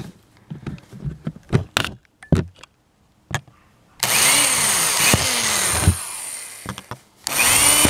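Power drill with a quarter-inch bit boring holes through a plastic bucket lid. A few clicks and knocks come first, then the drill runs for about two seconds from about four seconds in and winds down, and starts again near the end.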